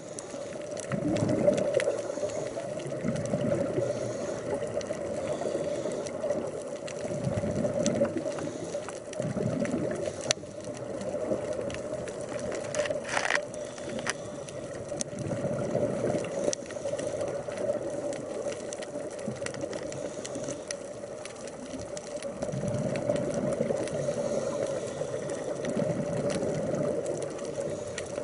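Underwater sound of a scuba diver breathing: bursts of exhaled regulator bubbles rumble and gurgle every several seconds, over a steady hum.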